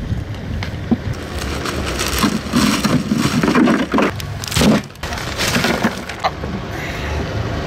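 A clear plastic bag crinkling and crackling as it is handled and shaken open, flapping in strong wind that buffets the microphone with a low rumble.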